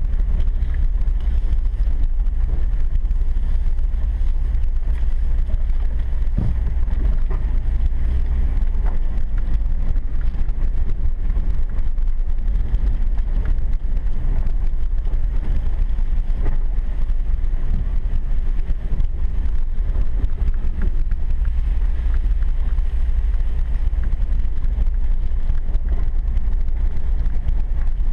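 Engine and road noise heard inside a vehicle's cab on a rough dirt road: a steady low rumble with scattered small knocks and rattles from the bumps.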